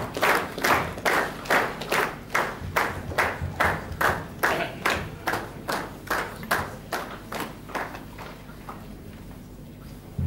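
Audience clapping together in a steady rhythm, about two to three claps a second, to welcome a speaker to the stage. The clapping fades out about two seconds before the end.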